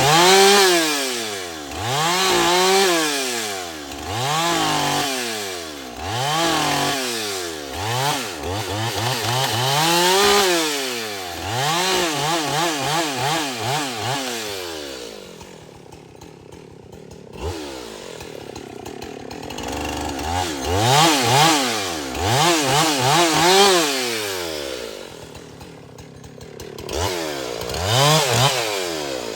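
Husqvarna 372XP XTorq two-stroke chainsaw cutting, its engine revving up and dropping back over and over, about every two seconds. Past the middle it falls back to a low idle for a few seconds, then revs again.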